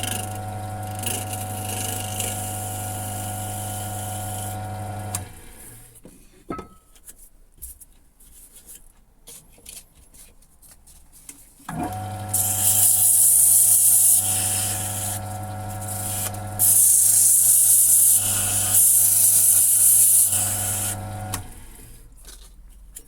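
Wood lathe motor running with a steady hum, stopping about five seconds in and starting again halfway through. While it runs the second time, a chisel edge scrapes the spinning plastic attachment in three long spells of loud, high hissing, and the lathe stops near the end.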